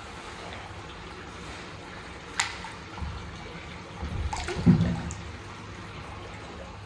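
Water sloshing and splashing in a large fish tank as alligator gars and redtail catfish thrash after chicken pieces. The loudest splash comes about four and a half seconds in, with a sharp click about two and a half seconds in.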